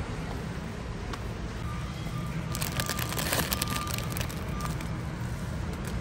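Plastic bag of Cadbury Twirl chocolates crinkling as it is grabbed off the shelf, loudest for about a second around the middle. Underneath runs a steady low store hum with faint short electronic beeps now and then.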